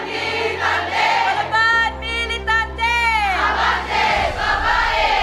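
A choir singing a hymn over held low accompanying notes, the voices gliding and holding long notes.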